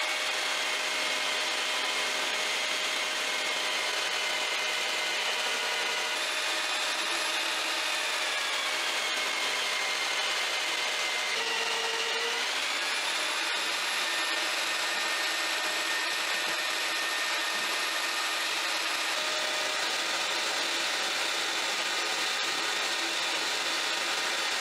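Homemade drum sander running, its abrasive drum sanding down a thin guitar plate fed through by hand: a steady sanding hiss over the motor's whine. The whine sinks slowly in pitch under the load and climbs back up about halfway through as the plate comes free of the drum.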